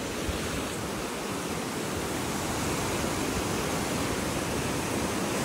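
Swollen monsoon river rushing through rocky rapids: a steady wash of fast whitewater in heavy flow.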